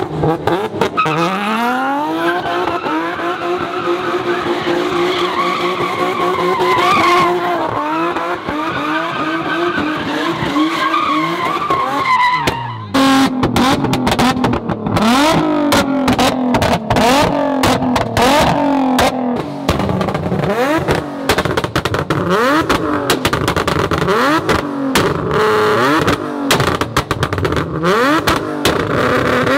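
A car engine held at high revs, then revved up and down again and again, with tyres skidding as the car spins donuts. The sound changes abruptly about 13 seconds in.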